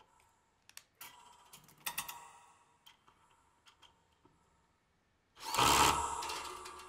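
Upcycled bandsaw blades of a motorised kinetic sound sculpture giving sharp metal clicks and short rings, scattered irregularly. About five and a half seconds in comes a much louder ringing metallic hit that slowly fades.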